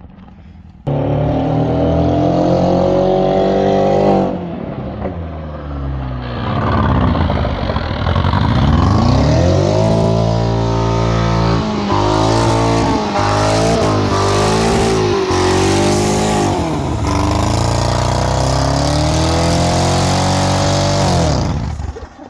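Volkswagen Jetta engine revving hard, the pitch climbing and dropping repeatedly with a dip around the middle. It starts abruptly about a second in and cuts off sharply near the end.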